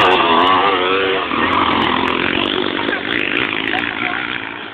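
Motocross bike's engine revving hard as it passes close by, its pitch wavering with the throttle. It is loudest at the start and fades within about a second, leaving a rasping engine drone.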